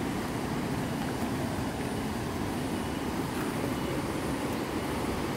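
Steady rushing of river water flowing past, an even noise with no breaks.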